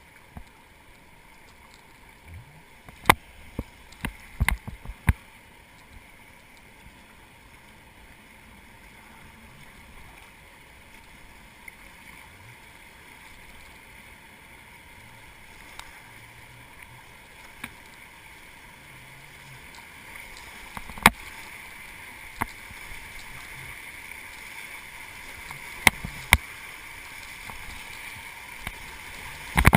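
Rushing river water, an even noise that slowly grows louder, broken by a few sharp knocks: one about 3 seconds in, a cluster near 4 to 5 seconds, and a few more from about 21 to 26 seconds.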